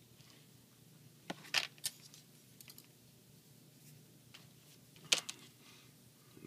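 Small plastic toy parts clicking as they are handled, with a quick cluster of clicks about a second and a half in and one sharp click about five seconds in, over a faint steady hum.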